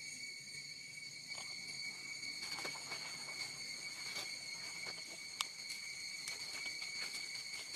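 Steady high-pitched chorus of forest insects, several constant tones droning together, with scattered light clicks and rustles and one sharper click about five and a half seconds in.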